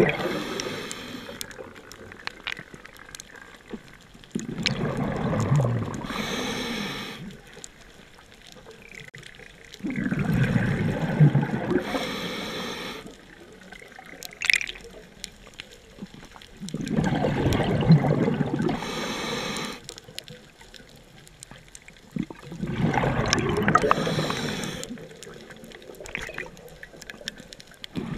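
Scuba diver breathing through a regulator underwater: a rush of exhaled bubbles about every six seconds, four times, each followed by a short high hiss from the regulator.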